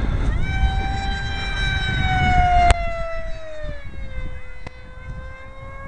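Brushless electric motor of an RC foam F-22 jet whining at high speed on a 5-cell lipo as the plane makes a fast pass. The pitch jumps up about half a second in, then drops steadily as the plane goes by and away. Wind rumbles on the microphone underneath.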